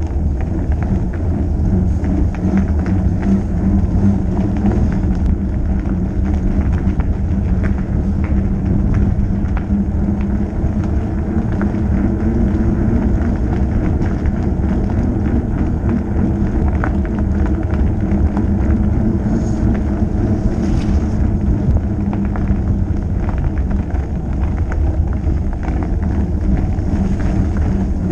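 Wide fat-bike tyres rolling over asphalt, a steady low rumble with a hum underneath.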